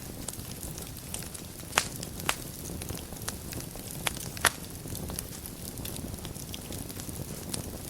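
Wood fire burning in a fireplace: a steady low rumble with scattered crackling and a few sharp pops from the burning logs, the loudest about two seconds and four and a half seconds in.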